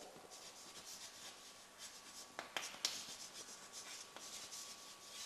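Chalk scratching faintly on a blackboard as a word is written by hand, with a few sharp taps of the chalk on the board partway through.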